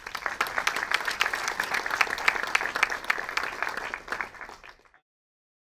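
Audience applauding, a dense patter of many hands clapping that fades and cuts off about five seconds in.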